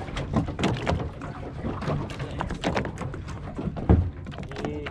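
Deck and hull sounds on a small fishing boat: water slapping the hull and scattered knocks, with one loud thump about four seconds in.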